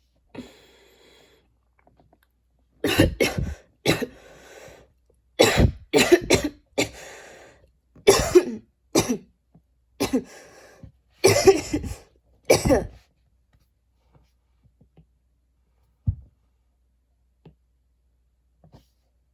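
A woman's hard coughing fit: a breath in, then about ten seconds of harsh coughs in repeated clusters of two or three, with gasping breaths between them, before it stops. It is a heavy, persistent cough.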